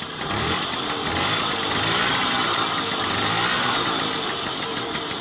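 Lambretta Lamby 150's two-stroke single-cylinder engine running just after starting, revving up and down a little, then easing toward idle with its separate firing beats distinct near the end.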